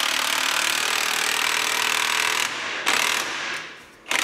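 Cordless impact wrench running on the forcing screw of a ball-joint press, pressing a new compliance bushing into a control arm. It runs steadily, eases off about two and a half seconds in, gives a short burst near three seconds, and starts again just at the end.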